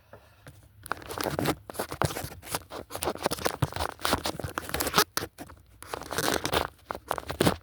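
Close, irregular rustling, crinkling and scraping from handling things at close range, with many small clicks, starting about a second in and pausing briefly twice.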